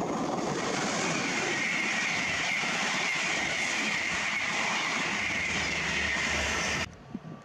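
Avanti West Coast Class 390 Pendolino electric train running through the station at speed: a steady rushing roar of wheels on rail and air, with a high hiss that sinks slightly in pitch. It cuts off suddenly near the end.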